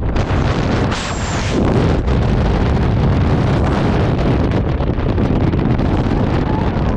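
Loud, steady wind rush buffeting a helmet camera's microphone during a skydiver's freefall, with a brief high thin whistle about a second in.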